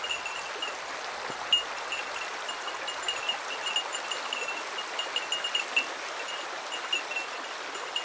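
Shallow stream running over gravel and stones: a steady, even babble of flowing water, with a scatter of short high-pitched notes over it.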